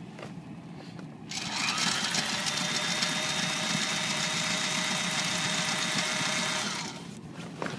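Sailrite portable sewing machine stitching a repair through Dacron sailcloth. It starts up about a second in, runs steadily at a constant motor pitch for about five and a half seconds, and stops near the end.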